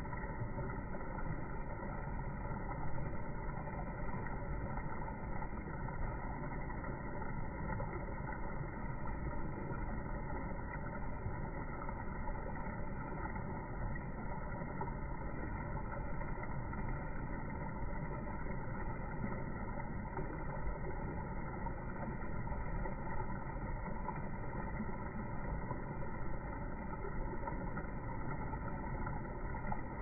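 Steady low rushing ambient noise beside a city river, with no distinct calls or other events, recorded on a smartphone.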